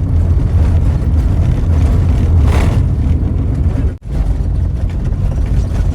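Car driving, with a steady low engine and road rumble, a brief swell of noise about two and a half seconds in, and a momentary dropout at about four seconds.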